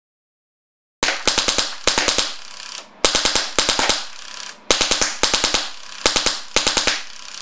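High-pressure-air paintball marker firing in rapid strings of sharp pops, several shots a second, in about eight bursts with a short hiss of air between shots, emptying its 3000 psi air tank.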